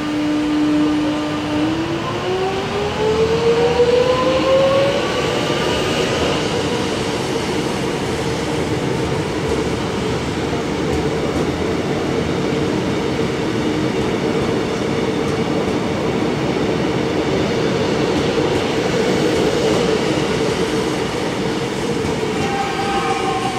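Alstom X'trapolis electric multiple unit pulling away, its traction motor whine rising steadily in pitch for a few seconds as it gathers speed. Then the steady running noise of its wheels on the rails as the carriages pass, with a fresh whine starting near the end.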